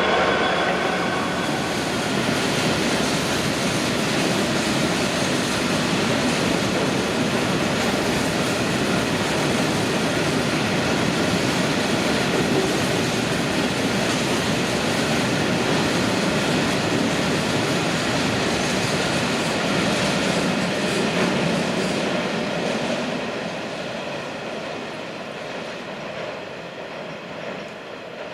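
Passenger train running along the track: a steady rail rumble and wheel noise that gradually dies down over the last several seconds.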